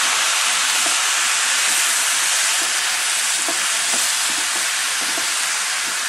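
Chopped mustard greens sizzling in hot oil in a pot as they are stirred with a wooden spoon: a steady hiss that eases slightly.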